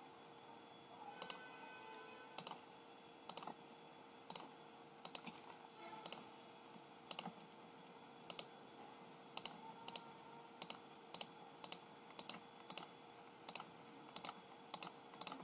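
Faint computer mouse clicks, about two a second at an uneven pace, each one placing a point of a boundary polygon on a map, over a faint steady hum.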